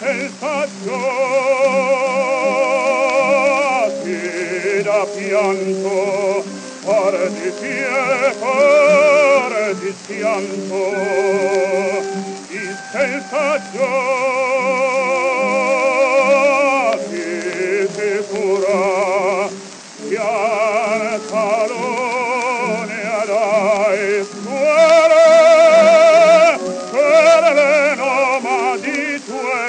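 Operatic baritone singing with a wide vibrato over a sustained accompaniment, from a 1907 acoustic 78 rpm disc recording, with steady surface hiss and crackle and no deep bass. The phrases break off briefly a few times, and the voice swells loudest about two-thirds of the way through.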